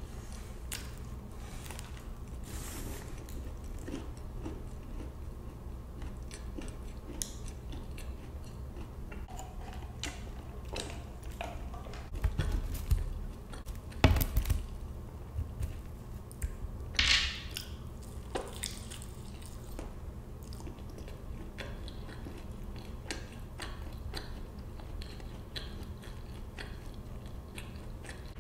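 Close-miked chewing and biting of a soft biscuit and seasoned fries, with small wet mouth clicks throughout. A few louder thumps come around the middle, and a short papery rustle follows a few seconds later.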